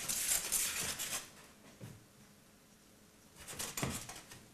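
Butter with dried rosemary crackling and sizzling in a frying pan, in two spells: the first dies away about a second in, and a shorter one comes near the end as the pan is handled.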